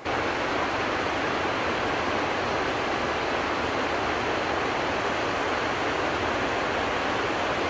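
Steady, loud rushing of a mountain torrent over a stony bed, cutting in suddenly.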